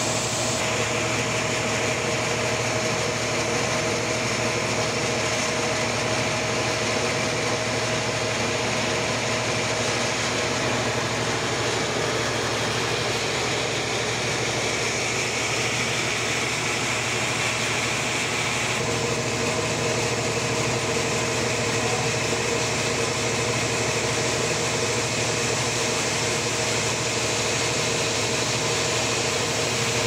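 Sawmill running steadily with its saw cutting through a large trembesi (rain tree) log: a continuous machine drone with a whine over it, its note changing a little about 19 seconds in.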